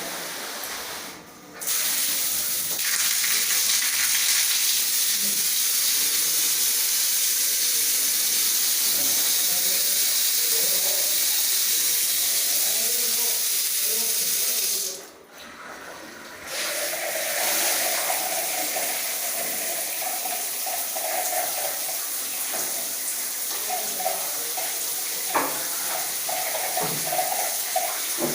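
Water spraying from shower outlets. It cuts out briefly twice as the thermostatic diverter is switched from one outlet to the next. After the second switch the flow is a little quieter, with a steady hum in it.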